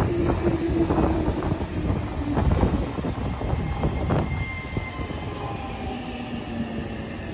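JR 211-5000 series electric train moving along the platform and slowing, with a high, steady squeal that is loudest about five seconds in. Under it are a rumble, irregular knocks and lower tones that slowly fall in pitch as the train slows.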